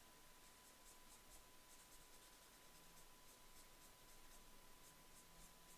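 Faint, quick repeated scratching of a paper blending stump stroked across drawing paper to blend graphite shading, several strokes a second, with a faint steady high whine underneath.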